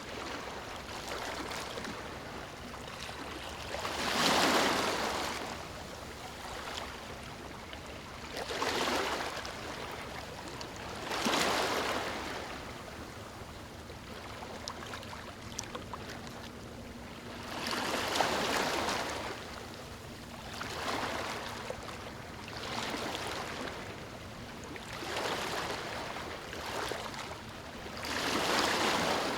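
Small waves breaking and washing in one after another every few seconds, over a steady hiss of moving water.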